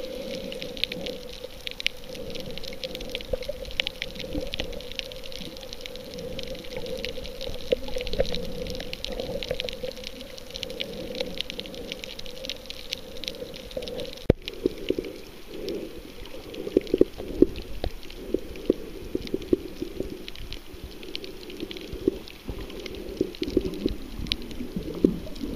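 Underwater sound picked up by a submerged camera: muffled water movement with a steady low hum and scattered sharp clicks. After an abrupt change about halfway through, louder irregular crackling and knocks take over.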